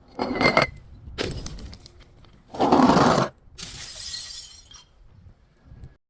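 Glass breaking and shattering in a series of loud crashes about a second apart, with crackling and tinkling of fragments between them.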